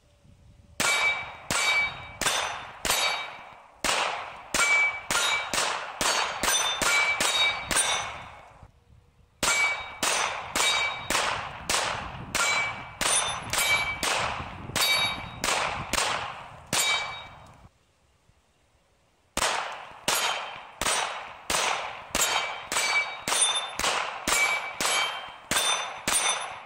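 Heckler & Koch VP40 pistol in .40 S&W fired in quick strings of shots at steel targets, with hits ringing off the steel after the shots. Three strings, with a brief pause about 9 seconds in and a longer silent pause about 18 seconds in.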